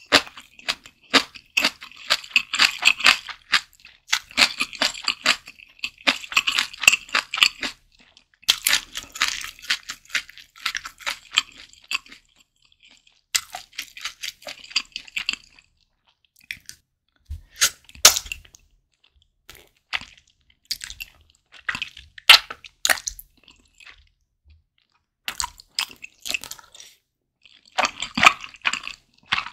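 Close-miked chewing of a mouthful of mala tang with bean sprouts: crisp crunching and wet mouth clicks in dense runs. The chewing thins to scattered single clicks in the middle stretch, then picks up again near the end.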